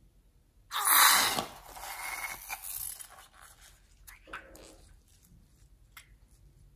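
Red liquid slime forced out of a squeezed balloon's neck with air: a loud wet rush about a second in that fades over the next two seconds, then a shorter, softer squelch near the middle and a few faint clicks.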